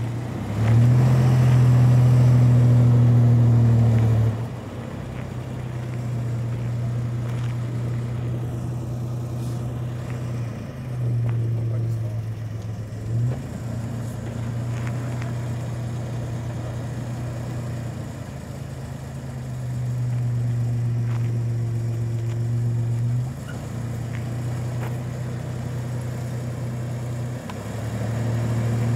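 1990 Toyota 4Runner's stock 3.0-litre 3VZ-E V6 engine crawling the truck over concrete steps. It runs at a low steady note between several throttle surges a few seconds long, the loudest one near the start.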